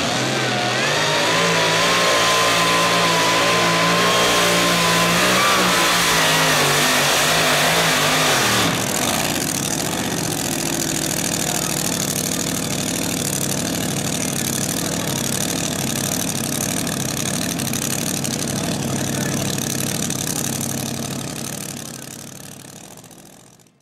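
Supercharged engine of a two-wheel-drive pulling truck running at full throttle under load as it drags the pulling sled, for about nine seconds. The revs then drop suddenly when the throttle is lifted, and it settles to a steady idle that fades out near the end.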